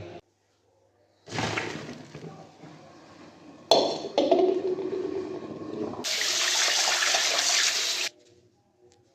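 Water running and pouring in the kitchen, in separate stretches that start and stop abruptly: one about a second in, another with a sharp click near four seconds, and the loudest, fullest one from about six to eight seconds.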